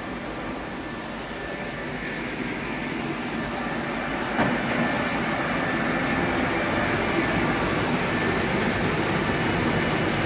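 Steady mechanical din of wool spinning frames running in a yarn mill, growing louder over the first few seconds. A single sharp knock comes about four and a half seconds in.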